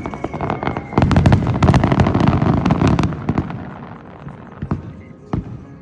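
Aerial fireworks bursting: about a second in, a dense, rapid crackle of many sharp cracks over low booming runs for about two seconds, then fades to a few scattered single bangs.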